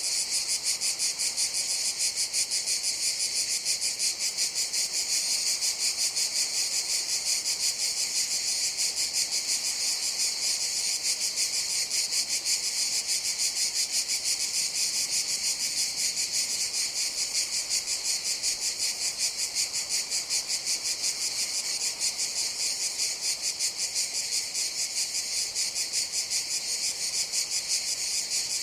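Cicadas singing in a steady, high-pitched buzzing chorus that pulses about three times a second.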